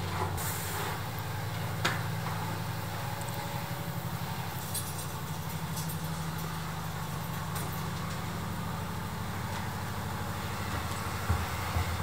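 Robot vacuum cleaner running with a steady low hum, turning louder and bumpier near the end as it comes close. A couple of faint clicks in the first two seconds.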